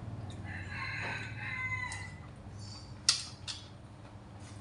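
A rooster crowing once: a single drawn-out call of about two seconds. About three seconds in, a single sharp click follows.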